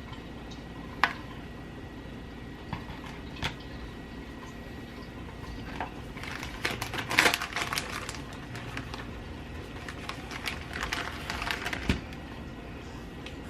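Hands at work filling egg roll wrappers: a few single clicks, then two stretches of quick crinkly rustling and clicking, with a sharp knock near the end.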